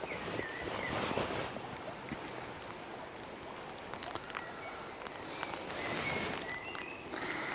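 Common blackbird singing short fluty phrases, several times, over the steady rush of a river in flood.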